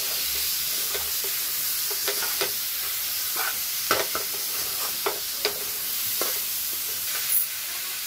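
Raw chicken pieces sizzling in hot oil in a non-stick frying pan as they are stirred with a metal spoon, the spoon knocking and scraping against the pan about ten times at irregular moments.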